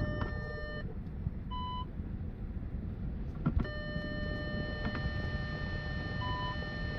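Electronic warning tone from the car, steady for about the first second, then starting again about three and a half seconds in and holding. Two short higher beeps come between, with a few clicks over a low rumble.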